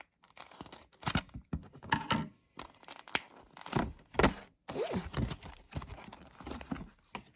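Plastic wrapping being torn open and crinkled by hand around a small squishy toy, in irregular rustling bursts.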